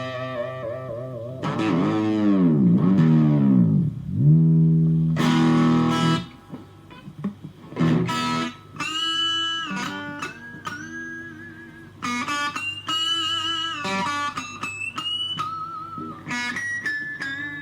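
Electric guitar, an FGN Stratocaster played straight into a Fender Studio Valve SVH valve amp. Early on, ringing notes dip and swoop in pitch several times, then a chord is held briefly. After that come single-note lead lines with bends and vibrato.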